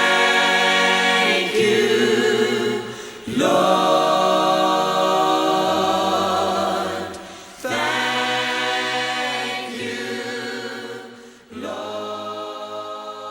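Choir singing a worship song in long held chords: a new phrase comes in every three to four seconds and fades away, and the last phrases are softer.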